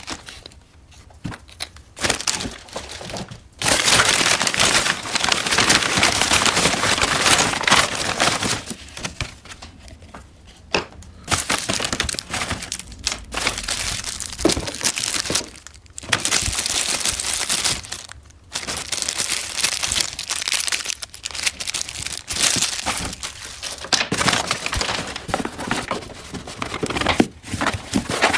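Crumpled kraft packing paper and plastic parts bags rustling and crinkling as they are handled inside a cardboard box, in several long stretches broken by short pauses.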